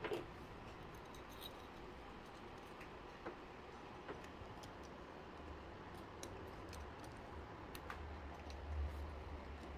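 Scattered faint clicks and light metallic taps of hands working a jumper-cable clamp and its wire, over a low hum that swells briefly near the end.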